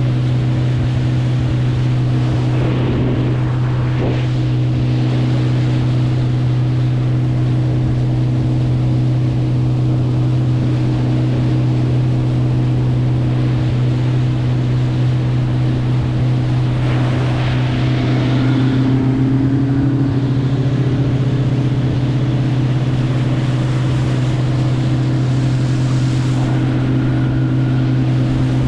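A boat motor running at a steady speed, a constant low drone over the rush of water and wind.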